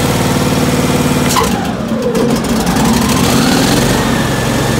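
17 hp Kawasaki V-twin engine of a John Deere LX277 lawn tractor running while it warms up after a cold start. About a second and a half in, its note dips, then climbs steadily over the last two seconds as the throttle is moved.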